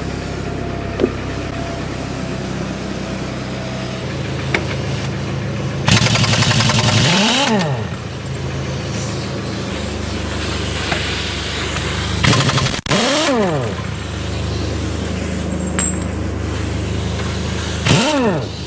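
Forklift engine running steadily, revved up and back down three times as the forks take up tension on a chain to lift a tractor tire.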